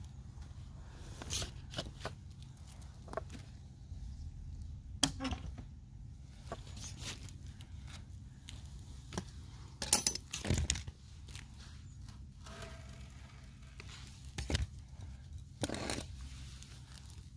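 Scattered knocks, scrapes and rustles of tools and a timber batten being handled and set against a wall, the loudest knocks about ten seconds in, over a low steady rumble.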